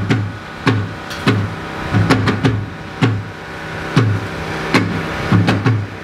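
Music with a deep, pitch-falling kick drum and bass beat and sharp percussion hits, played loud through a PA of JBL SRX828S subwoofers and RCF HDL10A line-array speakers during a sound check.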